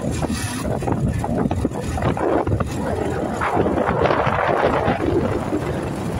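A vehicle on the move, a steady rumble with wind buffeting the microphone.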